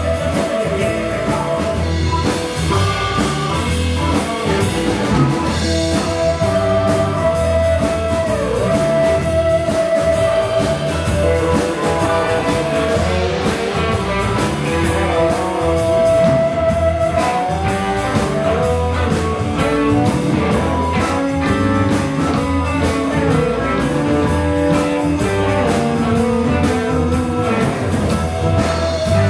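Live blues band jamming instrumentally: electric guitars, bass guitar, drum kit and keyboard over a steady drum beat, with long held lead notes that bend down and up in pitch.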